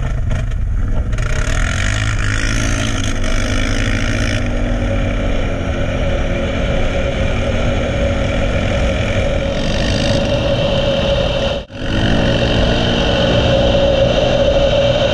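ATV engine running under way at road speed, heard from the rider's helmet with wind noise on the microphone. The engine note swells and eases a little, and the sound drops out for an instant about three-quarters of the way through.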